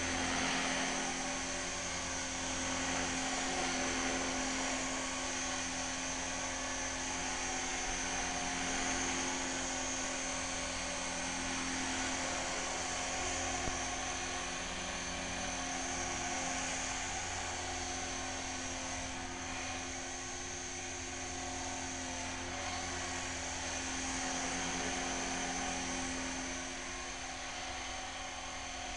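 Align T-Rex 450 V2 electric radio-controlled helicopter in flight: a steady high motor whine over the buzz of its rotor, swelling and easing a little every few seconds as it manoeuvres.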